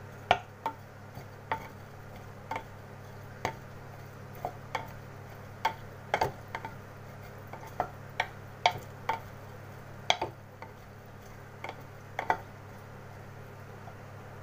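Wooden spatula knocking and scraping against a clay cooking pot while stirring chopped onions: a string of irregular sharp knocks, some in quick pairs, over a steady low hum.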